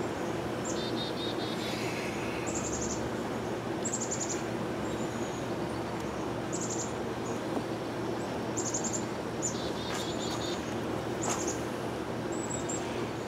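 Steady hum of a honeybee colony in an open top bar hive. A songbird's short, high chirping trills repeat over it every second or so.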